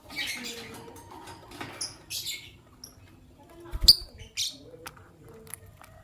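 Fischer's lovebirds chirping in short, scratchy high-pitched bursts, with a sharp knock just before four seconds in.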